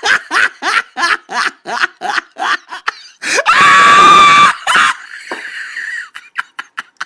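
A voice laughing in quick short bursts, about three a second, then breaking into a loud scream about three seconds in that lasts about a second.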